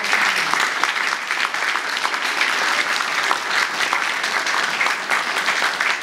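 A roomful of guests applauding, many hands clapping steadily throughout.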